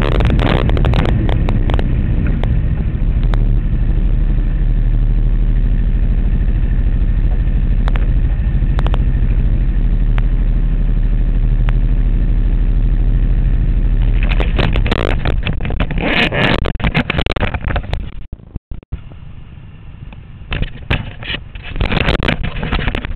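Small single-seat race car's engine running steadily at low speed, heard through a camera mounted on the car. About fourteen seconds in, loud irregular knocking and rubbing close to the microphone take over, and the engine sound drops away, leaving scattered bumps near the end.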